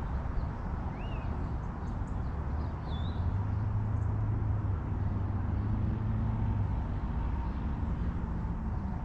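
Low rumble of a distant engine that swells in the middle and eases off again, over a steady outdoor background, with two short high bird chirps in the first few seconds.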